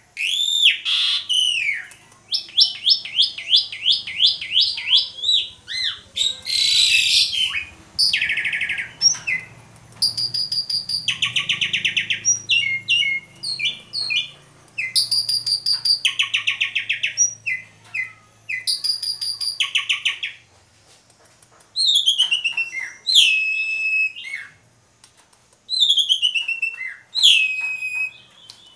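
Asian pied starling (jalak suren) in full, continuous song: a long, varied string of loud phrases with runs of repeated notes about four a second, fast buzzy trills and one harsh, rasping burst. Near the end come two falling whistles, each ending in a held note.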